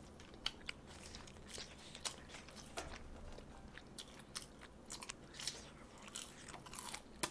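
Faint, close-miked chewing and biting of fried food, with irregular soft crunches and small mouth clicks.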